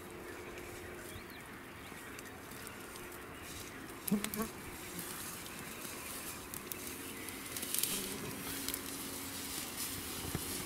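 Insects buzzing around in low steady hums that come and go, with a short louder sound about four seconds in.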